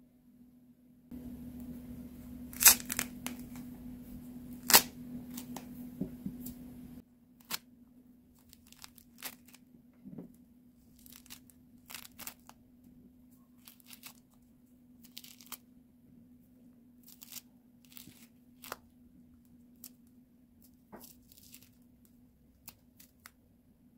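Mandarin-type citrus being peeled by hand: the rind tears away in many short crackling rips, with two sharp loud snaps about three and five seconds in as the peel first breaks open. A faint steady hum lies underneath.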